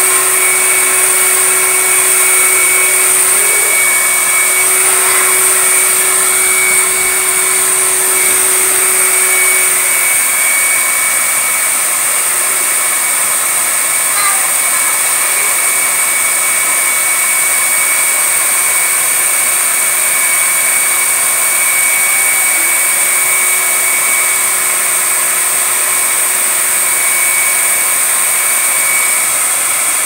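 Canister vacuum cleaner's motor running steadily, air rushing from its blower port, with a high steady whine throughout. A lower hum drops away about ten seconds in.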